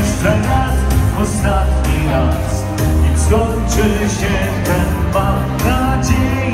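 Dance music played by a keyboard player and a singer over a PA, with a heavy, steady bass beat under a melody line.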